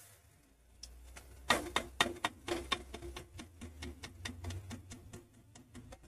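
Metal ladle clinking and scraping against an aluminium pot while thick curry gravy is stirred: a quick run of sharp ticks, several a second, loudest between about one and three seconds in, over a low steady hum.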